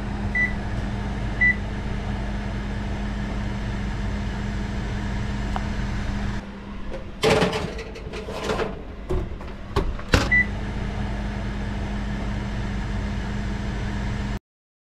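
Kitchen oven running with a steady electric hum, its control panel beeping briefly twice near the start and once about ten seconds in. A few sharp clatters of handling come between about seven and ten seconds, and the hum cuts off suddenly near the end.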